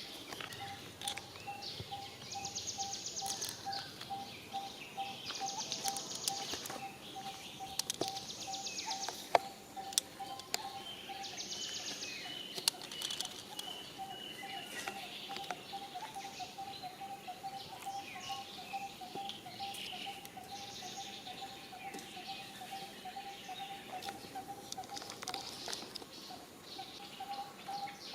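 Outdoor wildlife ambience: a bird repeats a short note about three times a second, pausing briefly near the middle and again near the end. Several short high buzzing trills and a higher call come in over it, with scattered light clicks and taps.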